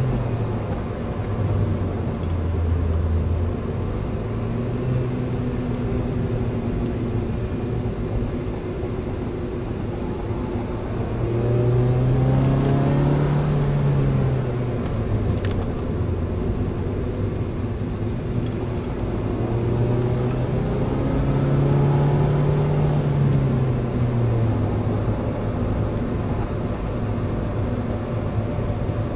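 Car engine and tyre noise heard from inside the cabin while driving. The engine note climbs as the car speeds up about eleven seconds in and again about twenty seconds in, then falls back each time.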